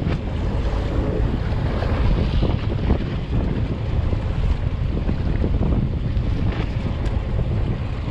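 Wind buffeting the microphone on a fishing boat at sea, with the boat and waves in a steady rumbling noise underneath.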